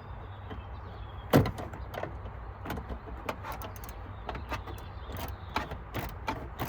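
Scattered light clicks and taps of tools and parts being handled at a car's battery, with one sharper knock about a second and a half in, over a steady low hum.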